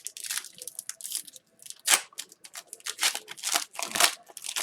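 Hockey trading cards and their pack wrapper being handled: a run of short, irregular rustles and crinkles as the cards are slid and flipped.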